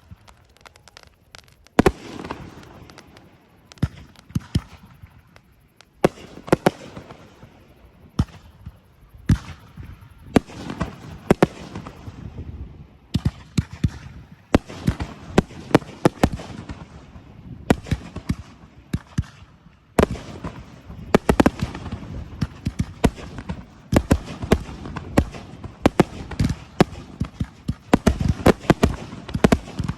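Fireworks display: aerial shells bursting one after another in sharp bangs, coming thicker and faster from about two-thirds of the way through.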